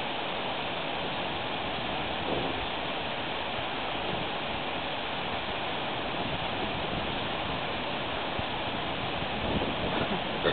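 Steady rushing noise, even and unbroken, like running water, with a few faint brief sounds near the end.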